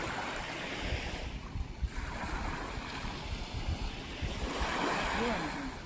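Small waves washing onto a sandy shore, swelling and fading a few times, with wind buffeting the microphone. A faint voice is heard near the end.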